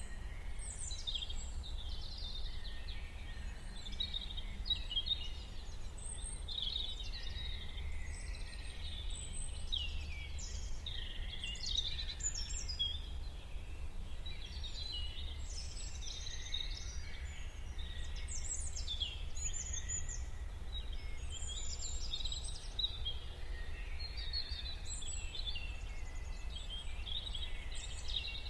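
Many birds chirping and singing at once, short calls overlapping without a break, over a steady low rumble.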